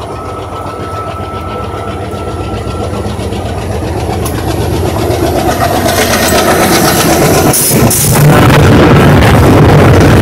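Diesel locomotive approaching along the track, its engine and wheels growing steadily louder, then running directly over the rails about eight seconds in with a loud engine rumble and clattering wheels.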